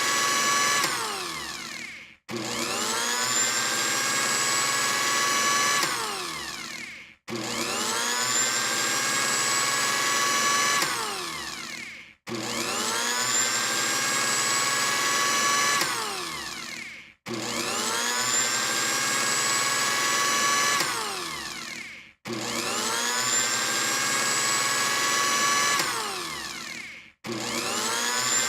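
Electric blender motor whining up to speed, running steadily with a high whine, then winding down and stopping. The cycle repeats about every five seconds, six times.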